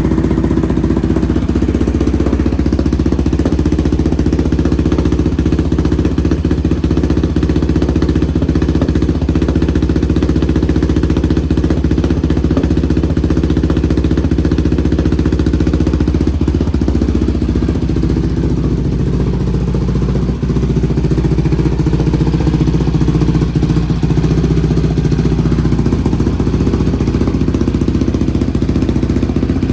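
Yamaha Raptor 700R's single-cylinder four-stroke engine idling steadily through a newly fitted Empire Industries aftermarket single exhaust, just after a cold restart on a freshly loaded Power Commander fuel map. The idle note changes slightly a little over halfway through.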